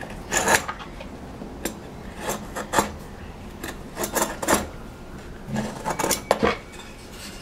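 Steel vernier caliper worked against a wooden block to scribe a centre line: a series of short scratching scrapes of the jaw tip on the wood, mixed with light metallic clicks as the caliper slides and shifts.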